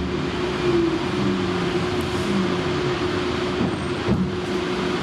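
Light rail train heard from inside the car as it slows along a station platform to a stop: steady running noise with a hum and a faint low whine that slides in pitch.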